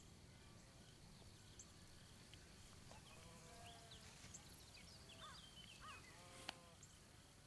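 Quiet open-air field ambience: a faint steady high trill, with a cluster of faint short animal calls in the middle and a single brief tick near the end.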